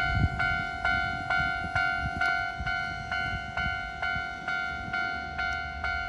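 Japanese railway level-crossing warning bell ringing, an electronic ding repeated evenly about twice a second, signalling that a train is approaching and the crossing is closed.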